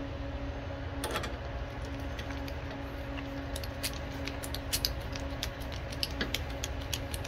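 Hand ratcheting screwdriver with a socket bit clicking irregularly as it turns a carburetor mounting bolt on a small mower engine, over a steady low hum.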